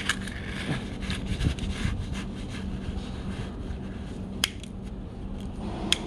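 Plastic toy front-end loader pushed by hand through coarse sand, its bucket scraping and crunching into the grit, with two sharp clicks in the second half over a steady low hum.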